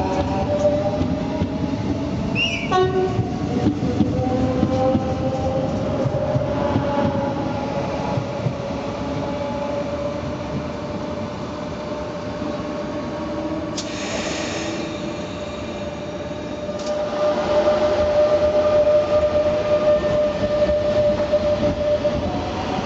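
Rodalies electric commuter trains running through the station: a steady electric whine, with other tones gliding up and down in pitch, over the rumble of the wheels. A brief falling squeal comes about three seconds in, and a hiss starts about 14 seconds in and stops about three seconds later.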